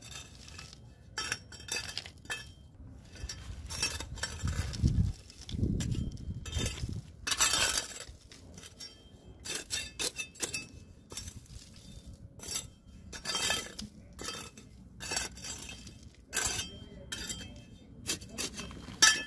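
Broken rubble and grit clinking and scraping as they are pushed by hand into the gap around a PVC pipe set in a concrete floor, packed in to hold the pipe firm. The clinks come irregularly, some louder than others.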